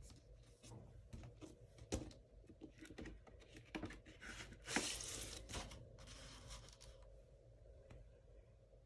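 Packaging of a vinyl LP being torn open and handled: a run of sharp clicks and crackles, then two longer rustling tears about halfway through.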